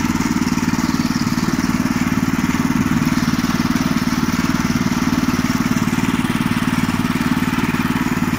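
Small air-cooled single-cylinder petrol engine of a Veles walk-behind tractor running steadily at a constant speed while towing a trailer, with an even, unchanging firing rhythm.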